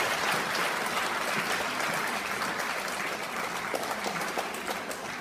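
Audience applauding, a dense patter of many hands clapping that slowly fades.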